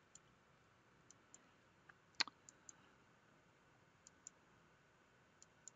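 Computer mouse button clicks: about ten faint, single clicks at irregular intervals, the loudest a little past two seconds in, over near silence.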